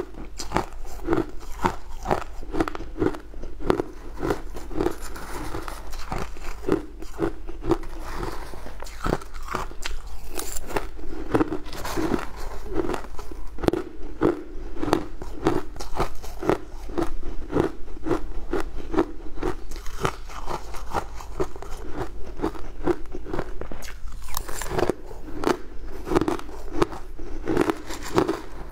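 Crunching and chewing of crumbly frozen ice, close to the microphone: a steady run of crisp crunches at about two bites a second, with a metal spoon now and then scraping through the icy mass in a plastic tub.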